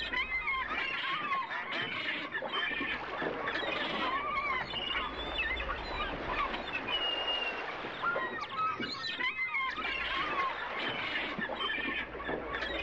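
Waterfowl calling: many short honking and quacking calls, overlapping and following one another quickly, over a steady low rumble.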